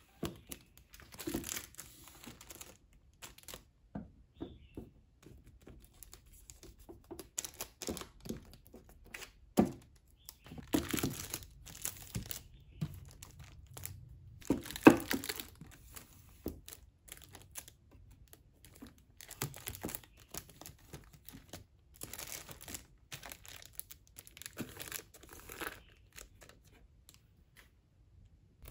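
Paperback manga volumes being handled and slid into a row on a shelf: plastic shrink-wrap crinkling, with scattered soft knocks of books against the shelf and each other at an irregular pace.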